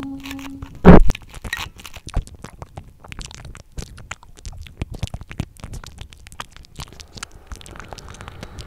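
A crusty bread loaf torn apart by hand, with one loud crunch of crust about a second in, then close chewing with many small crackles and clicks.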